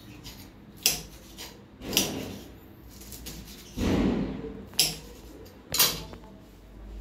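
Kitchen knife slicing green chillies on a chopping board: about four separate sharp knocks of the blade striking the board, with a longer scraping noise near the middle.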